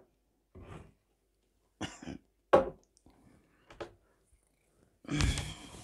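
A woman clearing her throat with a few short soft sounds, then a louder cough about five seconds in.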